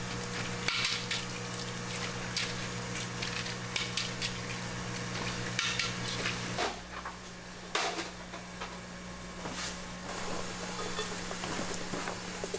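Metal spatula scraping and tapping on an iron griddle as tteokbokki (spicy rice cakes) are stirred and fried, with sizzling. Irregular scrapes and clicks run over a steady low hum, which drops about halfway through.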